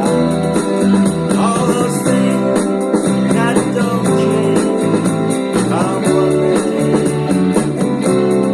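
Music led by guitar, with plucked and strummed strings playing a steady song.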